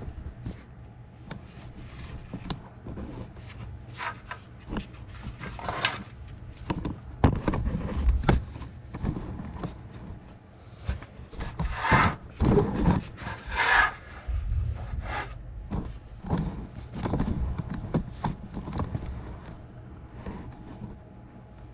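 Irregular rubbing, scraping and knocking of things being handled, with scattered sharp clicks and a louder run of scrapes about halfway through, over a faint steady hum.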